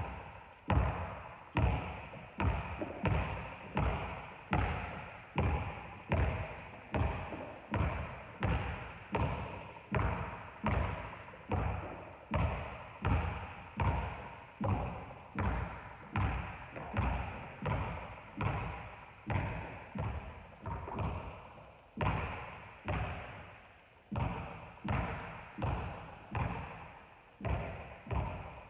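A basketball dribbled steadily on a wooden gym floor, about three bounces every two seconds, with a short break about three quarters of the way through. Each bounce echoes in the large hall.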